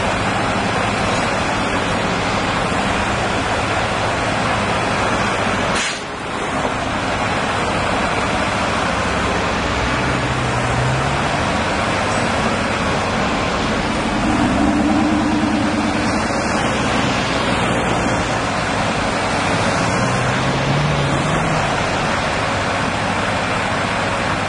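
Steady loud rushing noise, with a heavy crane's diesel engine rising in pitch briefly three times, about ten seconds in, around the middle and near the end.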